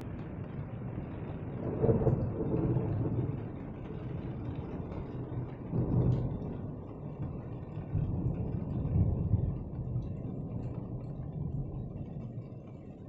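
Low rolling rumble of thunder that swells three times, the last swell the longest.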